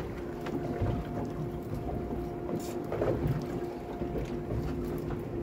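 Steady low hum of a boat's machinery over wind and water noise, with a few faint ticks.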